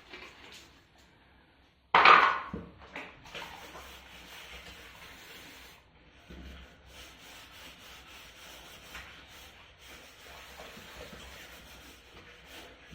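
Scrubbing and rubbing sounds of kitchen cleaning, with one sudden loud noise about two seconds in.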